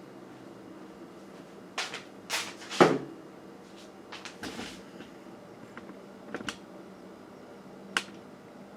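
A series of short knocks and clatters of small objects being handled and set down, about six in all, the loudest about three seconds in, over a faint steady hum.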